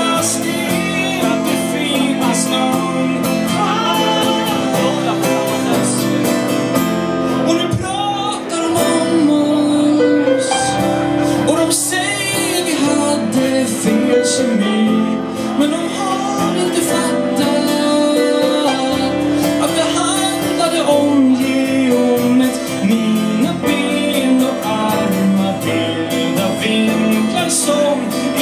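A small band playing a song live, with singing over acoustic guitar.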